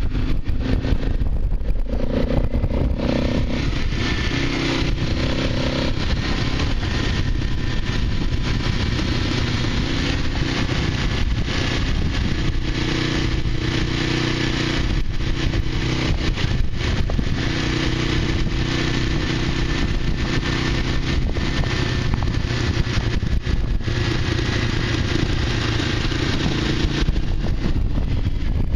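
Motorcycle engine running as the bike is ridden along a dirt road, its note stepping up and down with the throttle over a steady rush of wind and road noise.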